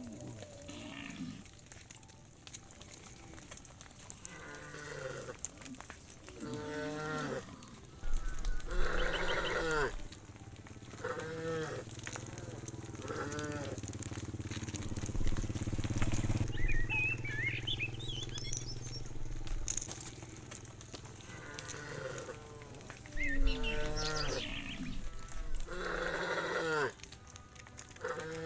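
A herd of cows mooing again and again, a dozen or so separate calls from different animals, some overlapping, the loudest near the middle and toward the end.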